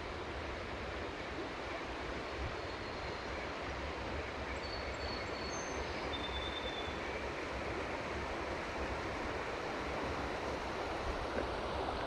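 Steady rush of flowing river water, with a few short, high bird chirps near the middle.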